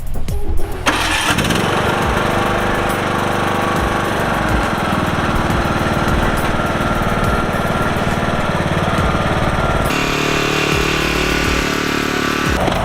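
Lawnmower engine with a freshly welded crack in its aluminum block starting about a second in and then running steadily. Its tone changes about ten seconds in.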